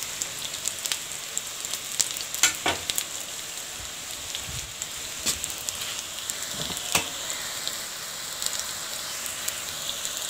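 Egg-coated chicken kababs shallow-frying in oil on a flat pan: a steady sizzle with scattered crackling pops.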